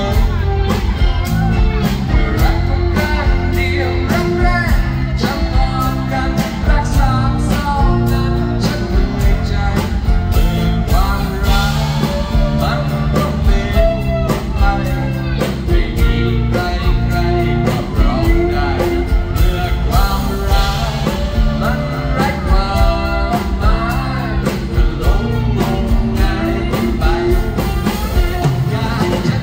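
Live band music: a male singer singing over strummed acoustic guitar, bass and a steady drumbeat, through a concert sound system.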